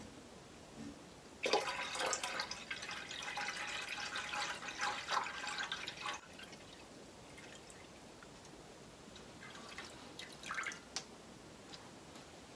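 Water poured from a plastic jerrycan into a stainless steel stockpot of cochineal dye liquid, topping up the dye bath. It splashes steadily for about five seconds, then stops abruptly. A few short handling noises from the container follow later.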